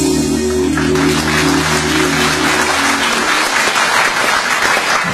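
Audience applauding over electronic backing music; the music fades out about three seconds in while the clapping carries on.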